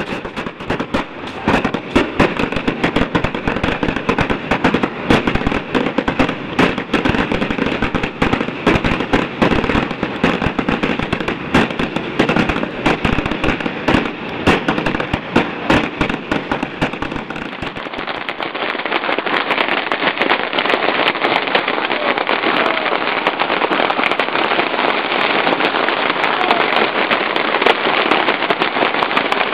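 Swarms of small rockets and firecrackers going off at once: a continuous crackle of bangs far too dense to count, with rockets streaking close by. About 18 s in the sound turns duller but stays just as dense.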